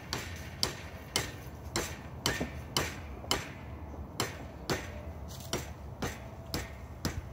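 Hammer blows struck by hand, about two a second with a short pause near the middle, each a sharp knock with a brief ring after it.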